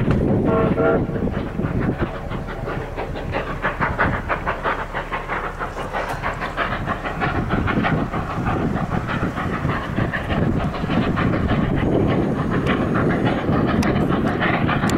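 Narrow-gauge passenger cars rolling past, their wheels clicking over the rail joints in a quick, steady clickety-clack.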